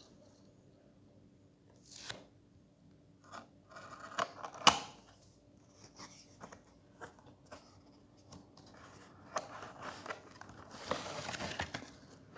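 Packaging being opened and handled: irregular rustling, crinkling and tearing with scattered clicks, one sharp snap a little under five seconds in, and a longer stretch of rustling near the end.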